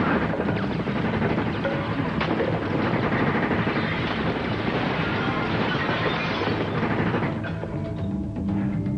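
Gunfire in a TV action scene over dramatic score music; the shooting stops about seven seconds in and the music carries on alone.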